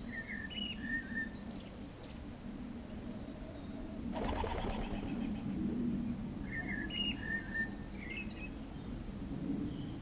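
Small birds at a feeder: a short chirping call, given twice about six seconds apart, and a brief flutter of wingbeats about four seconds in.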